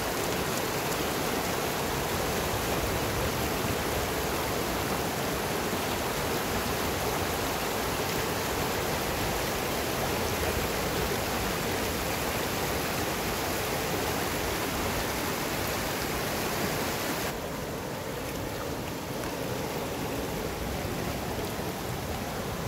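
Rushing water of a small mountain river, a steady hiss. About 17 seconds in, the sound abruptly turns duller and a little quieter.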